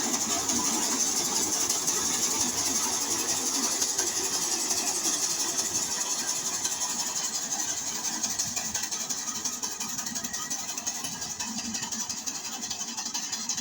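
Rice combine harvester running steadily, a busy mechanical noise with a strong high hiss, easing a little in loudness toward the end.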